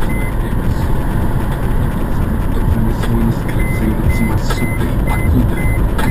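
Mercedes-Benz W212 E-Class driving, with steady road and engine rumble heard inside the car. A short high beep repeats over it at intervals.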